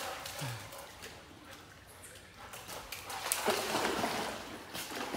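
Golden retriever splashing through shallow pool water, the splashing starting about three seconds in.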